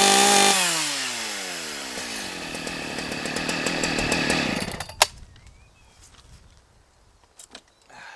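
Husqvarna 181 SE two-stroke chainsaw held at high revs, then let off the throttle about half a second in, its revs falling over a second or so to a rougher slow running. It stops about five seconds in with a sharp click, leaving only faint clicks.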